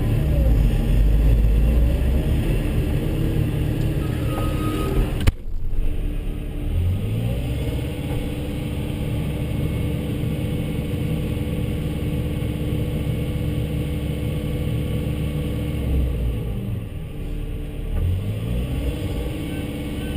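Volvo excavator's diesel engine running under load. There is a sudden break about five seconds in. The engine then revs up, holds a steady high speed, drops off briefly about sixteen seconds in and revs up again near the end, as the hydraulics work while digging and loading a dump truck.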